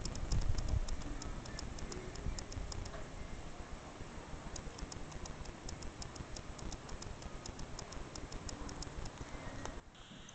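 Muffled hoofbeats of a horse loping on soft arena sand, heard at a distance, with a fast, fairly regular high-pitched ticking of about four a second over it. The sound drops away sharply just before the end.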